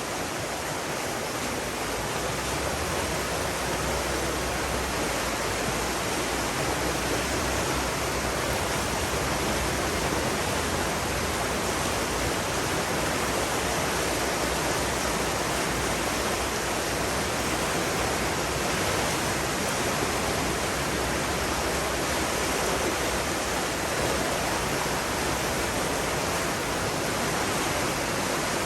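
Steady rushing water, an even unbroken roar with no distinct splashes or changes.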